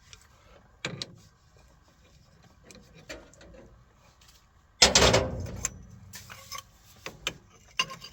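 Tools and parts being handled during work on excavator hydraulic fittings: a few separate knocks and clicks, with one louder clatter about five seconds in.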